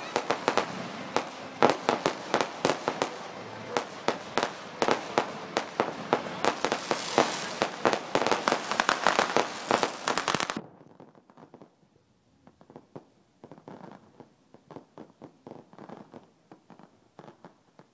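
Fireworks going off close by in rapid, dense pops and bangs. About ten seconds in the sound drops abruptly, leaving fainter scattered pops.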